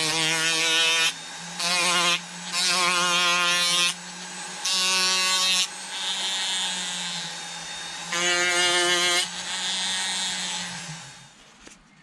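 Handheld rotary carving tool running, its bit grinding into a small wooden carving piece in five bursts of louder whining grind between steadier running. The motor winds down and stops near the end.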